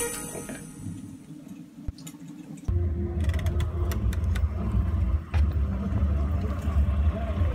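A short end of music, then a quiet stretch with a single click. About a third of the way in comes a sudden switch to a steady low rumble with scattered clicks and taps: wind and handling noise on a handheld phone's microphone as it is carried outdoors.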